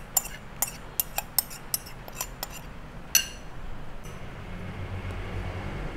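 A metal spoon clinking against glass bowls, a quick run of sharp taps as grated lemon zest is knocked out of a small glass bowl into a glass mixing bowl. One louder, ringing clink comes about three seconds in.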